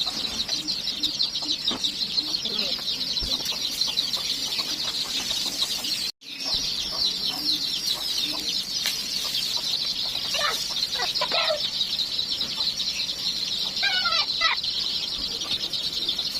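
Chickens clucking, with short pitched calls a few times over a dense, steady high-pitched chirping chorus. The sound cuts out briefly about six seconds in.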